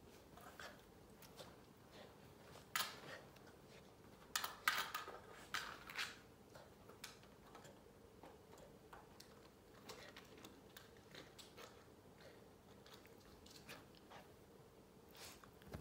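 Small dog chewing and gnawing at something between its paws: faint scattered clicks and crunches, with louder clusters about three and five seconds in.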